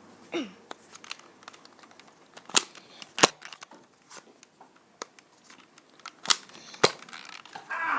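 Toy Nerf foam-dart blasters going off: four sharp separate pops, in two pairs about half a second apart, the loudest about three seconds in.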